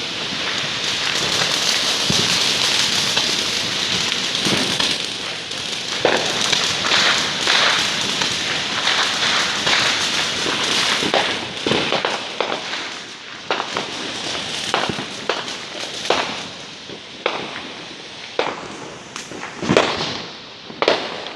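Consumer fireworks going off: a steady, dense hiss with crackling through the first half, then many sharp pops and cracks that come further apart toward the end.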